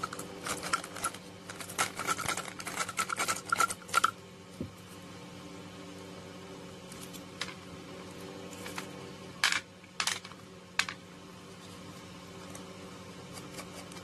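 Small metal nuts and bolts being handled and set down on a hard sheet: a quick run of light clicks and clinks for about four seconds, then three sharp clicks a little past halfway.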